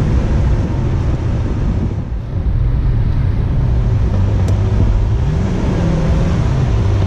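Lamborghini Aventador S Roadster's V12 engine running on the move, with wind and road noise. The sound dips briefly about two seconds in, and the engine pitch rises and falls a little past five seconds.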